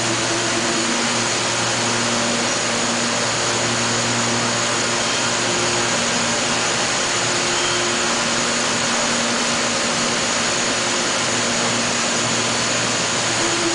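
Makino SNC64 CNC vertical machining center running under power: a steady whirring hiss over a low hum, with humming tones that come and go as the table and spindle head move.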